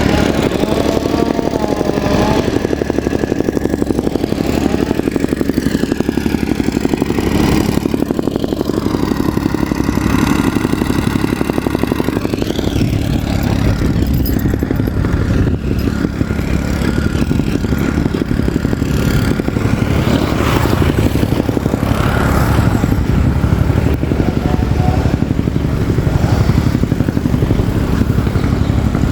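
Soil compactor's engine running steadily and loudly, with a rapid, even rattle.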